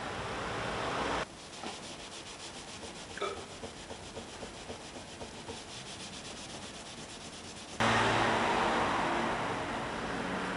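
Steady rushing noise from a power tool cuts off abruptly about a second in. Light taps and rubbing follow, then the rushing starts again abruptly near eight seconds.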